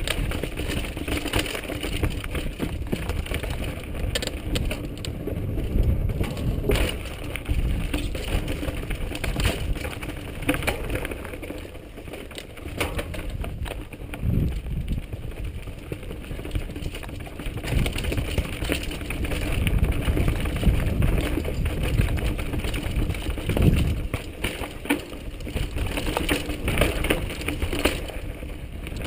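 Mountain bike descending a rough, rocky trail, heard from a camera on the bike or rider: tyres crunching over loose stones, the bike rattling and knocking over every bump, and wind rumbling on the microphone.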